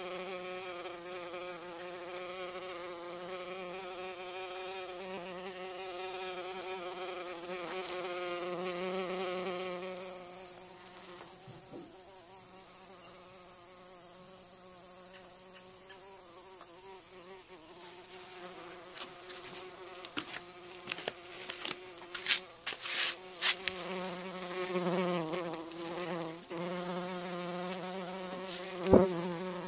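Bumblebee buzzing close by, a low hum whose pitch wavers as it flies. The buzz fades about ten seconds in and comes back strongly after about eighteen seconds, joined by several sharp knocks in the later part.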